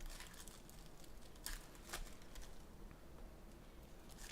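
Faint crinkling and a few short, sharp clicks of trading card packs and wrappers being handled.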